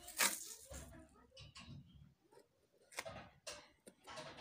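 Packing tape being pulled off its roll with a short rip about a quarter second in, then quiet rubbing and a few short sharp sounds as the tape is pressed down along the edge of a wooden mirror frame.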